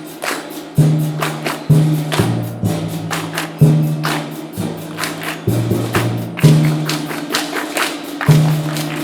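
School percussion ensemble playing a lively Christmas percussion piece. Sharp, loud hits land roughly once a second, each with a low pitched note, and quicker jingling and tapping strokes fill in between.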